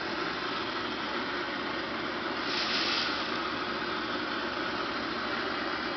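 Handheld propane torch hissing steadily as it blows hot air up into a paper sky lantern, with a louder burst of hiss about two and a half seconds in.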